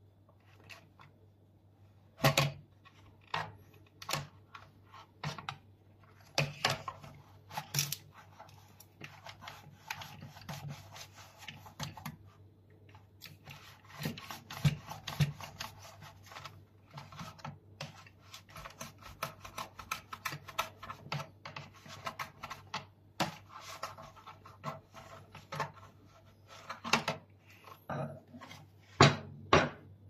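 A long metal screwdriver scraping, rubbing and clicking against the plastic inside a Dyson vacuum cleaner head as it pushes a cleaning cloth around the brush-bar motor housing. The sound is an irregular run of sharp clicks and short scrapes, with a few louder knocks.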